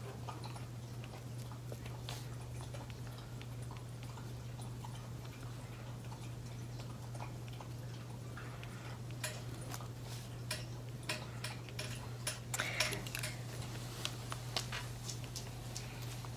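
Light, irregular taps of a wooden-handled tool dabbing dots of ink onto glossy photo paper, coming more often in the second half, over a steady low hum.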